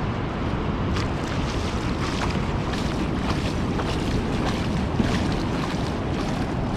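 Wind rumbling on the microphone over the steady wash of ocean surf, with faint scattered clicks and rustles.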